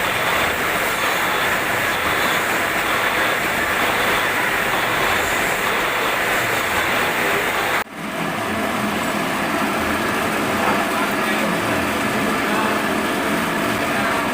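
Metal lathe running steadily while machining a crankshaft bearing, a constant mechanical noise that drops out briefly about eight seconds in.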